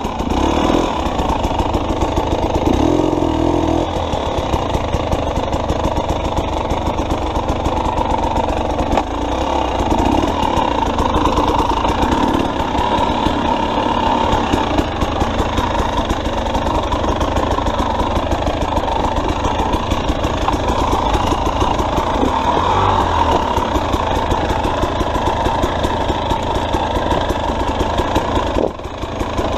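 2021 KTM 300 XC-W's single-cylinder two-stroke engine running steadily at low revs, its firing pulses even throughout, with a brief drop in level near the end.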